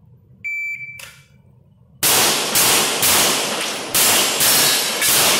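A shot timer beeps once, briefly, about half a second in. About a second and a half later a pistol opens fire: about seven shots roughly half a second apart, with one longer pause midway, each echoing off the concrete of an indoor range.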